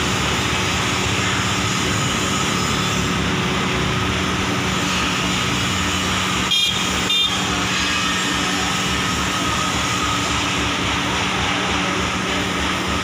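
A 2-metre cylindrical grinding machine running: a steady machine hum and whir with a constant low drone. Two short sharp clicks, about half a second apart, come about halfway through.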